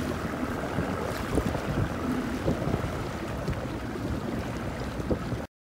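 Wind buffeting the microphone over choppy open water, with water sloshing. It cuts off suddenly near the end.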